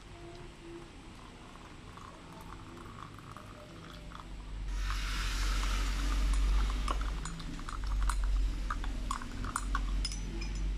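Water poured into a glass mug, then a metal spoon stirring the mixture, clinking and scraping against the glass in quick irregular taps from about five seconds in.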